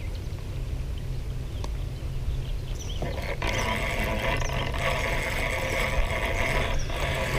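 Fishing reel being cranked in from about three seconds in, a steady whirring, over a low rumble of wind on the microphone.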